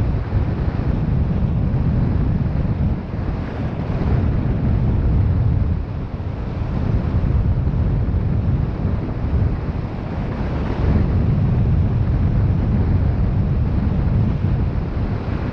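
Wind buffeting the microphone: a steady low rumble with no tone in it, easing slightly a few times.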